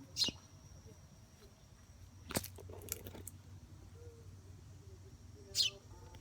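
Baby bird giving two short, high chirps that fall in pitch, one right at the start and one near the end, with a sharp click about two seconds in.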